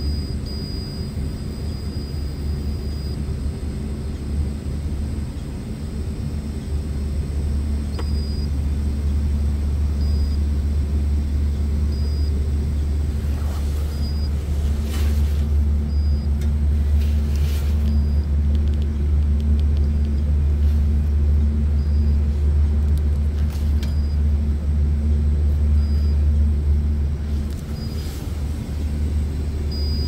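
Steady low rumble of running machinery, with a faint short high beep repeating about every two seconds from the insulation resistance tester (megger) while it holds 250 volts across the compressor windings.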